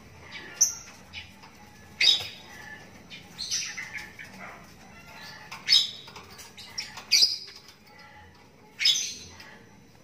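Young lovebird chick giving short, sharp, high-pitched chirping squawks, about six calls spaced irregularly a second or two apart.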